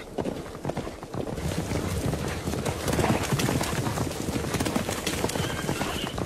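A horse galloping on a dirt track: fast, rapid hoofbeats that grow louder about a second in.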